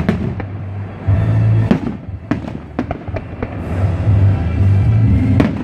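Aerial fireworks shells bursting, with sharp bangs and crackles several times at irregular intervals, over music with strong sustained low notes.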